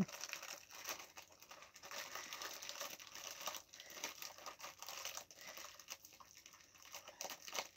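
Packaging of a shop-bought falafel wrap crinkling and rustling as it is opened by hand: faint, irregular crackles with some tearing.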